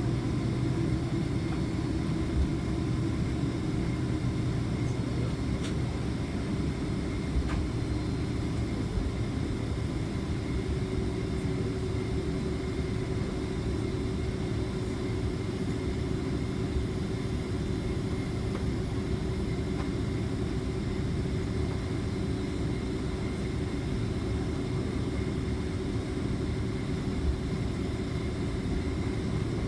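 Steady low rumble and hum inside a Boeing 767-400ER's cabin with its engines running on the ground, with an occasional faint tick.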